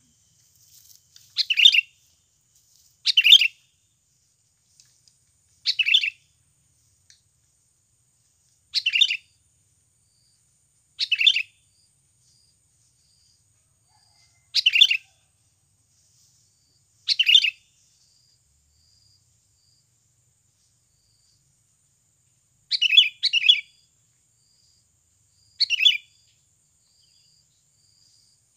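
Sooty-headed bulbul (kutilang) calling: short bubbly chirping phrases, about nine in all, each under a second and spaced irregularly a few seconds apart. These are the calls of a decoy bird set out to lure wild bulbuls.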